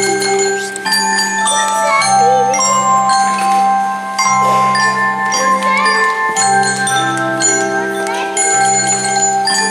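Instrumental music: a melody of bell-like mallet-percussion notes over sustained low notes.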